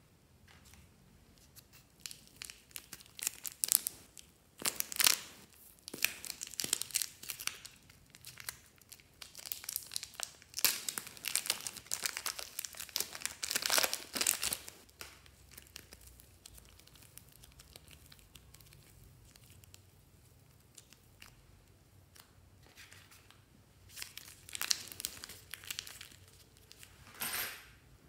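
Thin plastic bag crinkling in the hands as a lump of soft clay is worked out of it, in clusters of crackles through the first half. After a quieter spell there is more plastic crinkling near the end, with a sharp crackle just before it ends.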